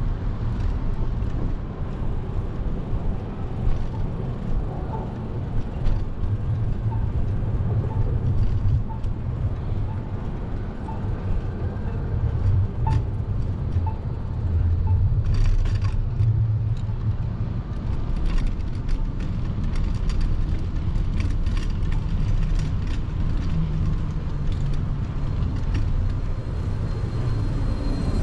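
City street traffic heard from a moving bicycle, with a heavy, uneven low rumble of wind on the microphone. A short burst of hiss comes about halfway through.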